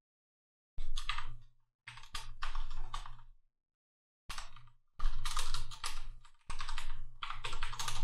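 Keys clicking in quick runs as a calculation is typed in, starting about a second in, with short pauses between bursts.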